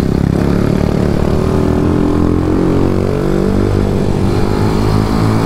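Ohvale minimoto engine at full effort on track, its revs climbing and dropping repeatedly with throttle and gear changes, under steady wind and road noise.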